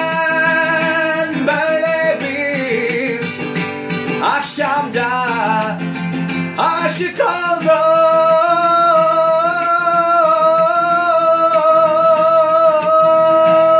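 A man singing in Turkish over a strummed acoustic guitar. About seven seconds in he holds one long final note with vibrato while the guitar keeps strumming beneath it.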